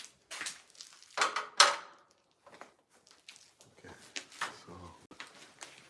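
Irregular clicks, knocks and scrapes of wires and tools being handled in an electrical panel, with the loudest pair of clacks a little over a second in.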